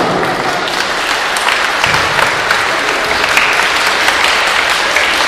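Applause: many people clapping together, holding steady throughout.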